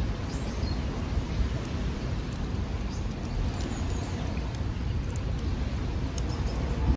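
Outdoor ambience: a steady low rumble with a few faint, short high chirps and ticks over it.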